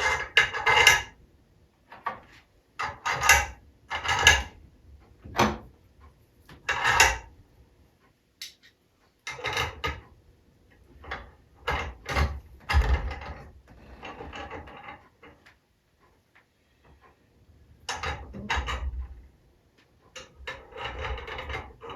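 Small metal parts of an aluminum compressed-air engine being handled and fitted by hand: irregular clinks, knocks and rubbing scrapes with short pauses between them.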